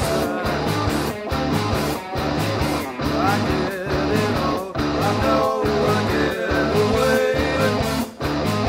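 Rock band music, instrumental at this point: a guitar lead with bent, gliding notes over a repeating bass line.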